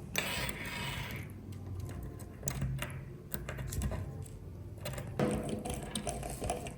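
Light clicks and taps of small hand work on a smartphone, with a brief hiss in the first second or so.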